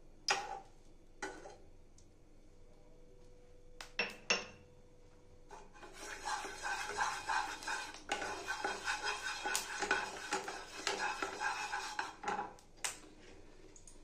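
Wooden spatula knocking a few times against a non-stick kadai, then stirring and scraping through hot oil in the pan from about six seconds in until near the end, with a couple of sharper knocks.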